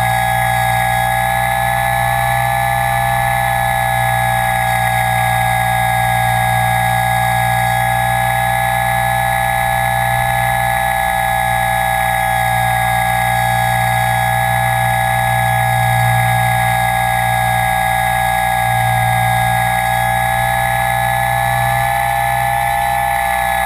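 Motors and propellers of an RC aircraft, heard from the GoPro mounted on it: a steady whine with a low hum beneath, its pitch wavering slightly as the throttle shifts.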